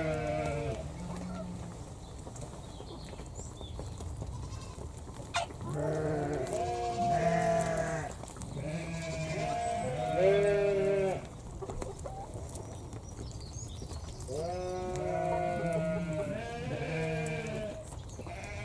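Pekin bantam hens making drawn-out, pitched calls while pecking at feed. The calls come in several overlapping clusters of a second or two each, with quieter gaps between. There is one sharp click a little after 5 seconds.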